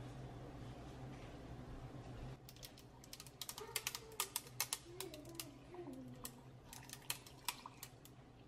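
Coffee poured from a glass server over ice in a plastic tumbler, the ice giving a run of sharp, irregular clicks and cracks. The clicks start a couple of seconds in and go on for several seconds.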